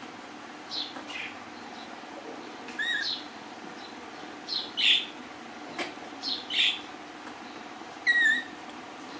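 Small birds chirping: about eight short, high chirps that fall in pitch, some in quick pairs, over a steady low hum. There is one sharp click about six seconds in.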